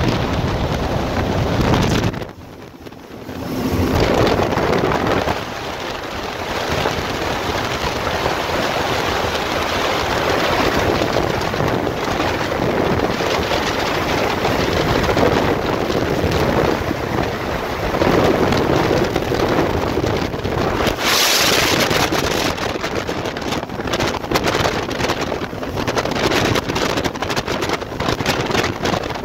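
Wind buffeting the microphone and water rushing past the hull of a boat running at speed, with its twin Suzuki 350 V6 outboards underneath. The level drops briefly about two seconds in, and a hissy gust surges about three quarters of the way through.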